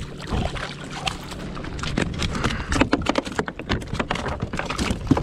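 Two black sea bass swung aboard a plastic fishing kayak and flopping on the deck: an irregular patter of slaps and knocks that comes thick and fast from about two seconds in.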